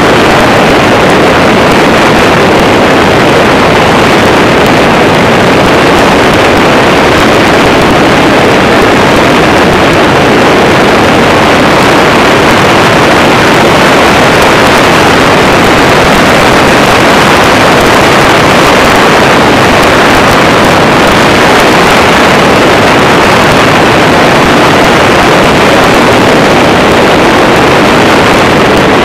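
Microlight trike in flight: its engine and propeller run with a steady, loud drone, mixed with wind noise on the microphone, level and unchanging throughout.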